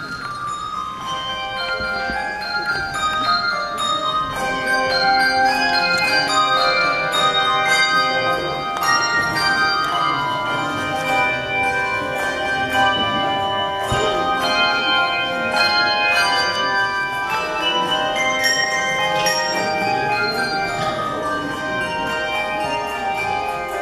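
Handbell choir ringing a piece: many handbells struck in overlapping chords and melodic runs, each tone ringing on after it is struck. The ringing swells louder over the first few seconds.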